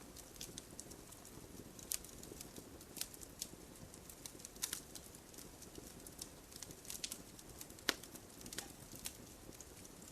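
Campfire crackling: irregular sharp pops and snaps of burning wood over a faint steady low rush, the loudest snap about eight seconds in.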